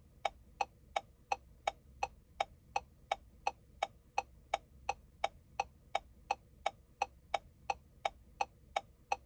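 Car turn-signal flasher clicking steadily, about three even ticks a second, over a faint hum.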